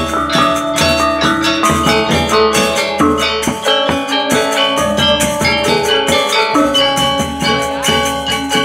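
Balinese gamelan gong ensemble playing a tabuh telu lelambatan piece: bronze metallophones ringing in steady, continuous strokes, with drum strokes beneath.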